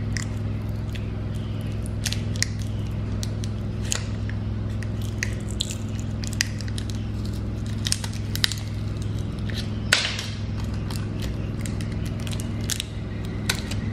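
Irregular small clicks and scrapes of a plastic pry pick working under a smartphone battery held down by double-sided tape, with a slightly longer scrape about ten seconds in. A steady low hum runs underneath.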